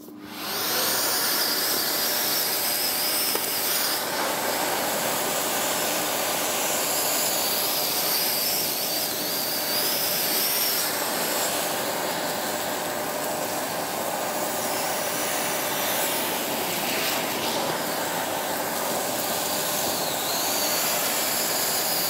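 Parkside Performance PPWD 30 A1 workshop wet-and-dry vacuum running at full suction, its bare stainless steel tube pulling up a pile of wood shavings. A steady rush of air with a high, wavering whistle above it, starting about half a second in.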